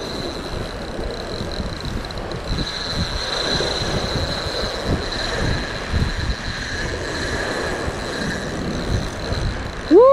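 Wind gusting on the microphone over surf washing against shore rocks, with a thin high whine that is loudest a few seconds in.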